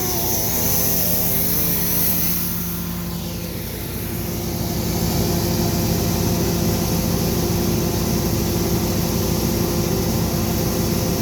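Bobcat E32 compact excavator's diesel engine running steadily under working load, with a wavering whine that rises and falls in pitch for the first couple of seconds.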